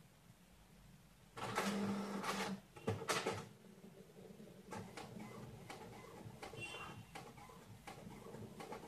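Photocopier running a copy: a loud motor whir starts about a second and a half in with a second burst just after it, then the machine carries on with a run of light clicks and ticks.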